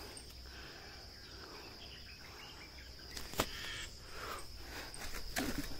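Crickets trilling steadily as a high, even background. A single sharp click comes about three and a half seconds in, followed by a few faint scuffs near the end.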